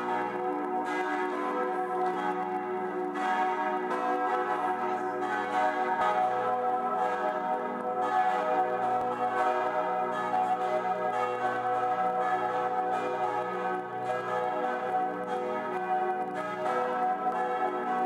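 Full peal of the Herz-Jesu church bells: several swinging bells ringing together, their strokes overlapping in a steady, dense clangour of lingering tones.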